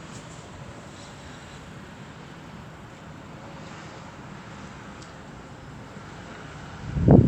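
Storm wind blowing as a steady rushing noise, then near the end a strong gust buffets the microphone with a loud, low rumble.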